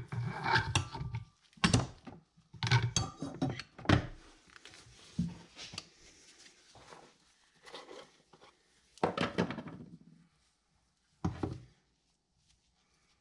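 Metal driveshaft parts, the center support bearing and splined shaft, being handled and set down on a wooden workbench. A string of knocks, clinks and scrapes comes in the first ten seconds, the loudest clatter about nine seconds in and a single knock a little later.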